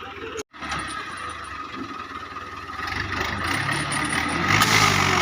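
Dabang 85 tractor engine running, then revving up and getting louder from about three seconds in, with a brief break in the sound about half a second in.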